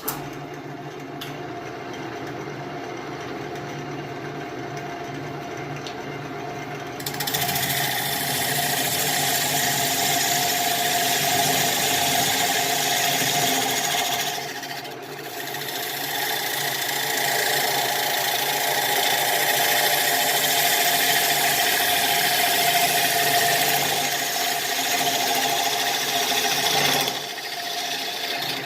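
Wood lathe running, its motor humming steadily. From about seven seconds in, a bowl gouge cuts into the spinning Russian olive bowl blank with a loud steady hiss of shaving wood, easing off briefly about halfway and again near the end.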